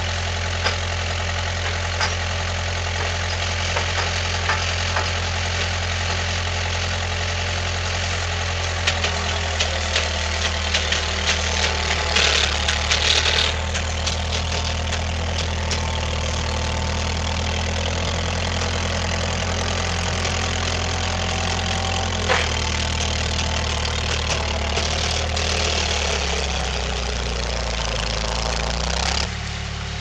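Old skid steer's engine running, its note shifting several times as the throttle changes, with a short spell of metal rattling and clanking near the middle.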